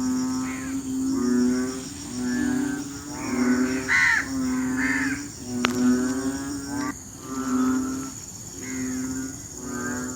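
Chorus of frogs giving their rainy-season mating calls: deep, droning croaks repeated about once a second, several callers overlapping.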